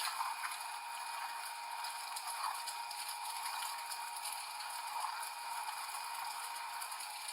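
A crushing machine pressing an object: irregular crackling and popping over a steady machine hum, swelling a little every couple of seconds.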